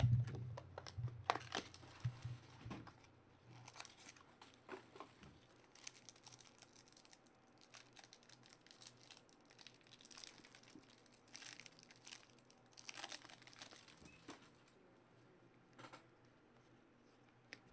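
Trading-card pack wrapper crinkling and tearing as the pack is opened by hand, followed by quiet handling of the cards. The crinkles are sharpest and most frequent in the first few seconds, then come fainter and more scattered.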